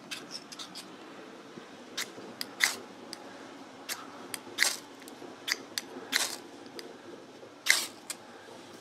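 Small ferrocerium rod scraped with a metal striker to throw sparks: about a dozen short, sharp scrapes at uneven intervals, a few of them longer strokes.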